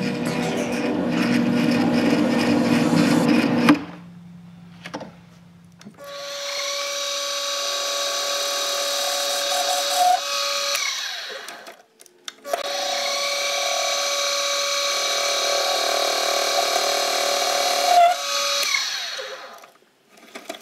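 Metal lathe cutting threads on an aluminium part. A stretch of running cuts off about four seconds in. Then come two longer runs of the spindle motor with a steady whine, about five and six seconds long, each ending as the motor winds down.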